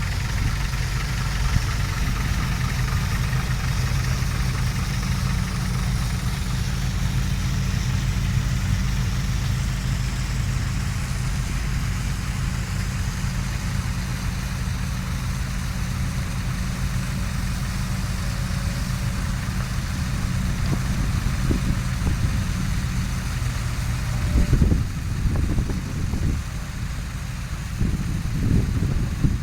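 Diesel engine of a tracked excavator running at a steady speed. Near the end the even hum turns uneven, with surges and a few knocks.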